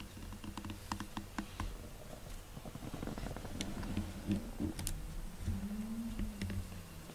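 Soft rustling and scattered small clicks right at the microphone, as the camera brushes against a sleeping cat's fur, over a low uneven rumble.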